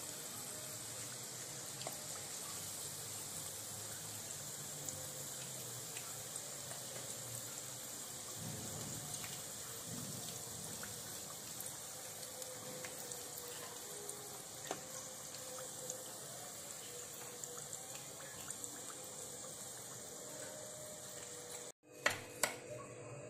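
Breaded chicken drumsticks deep-frying in hot oil: a steady sizzle with scattered small crackles and pops. Near the end the sizzle cuts off abruptly, followed by a few sharp clicks.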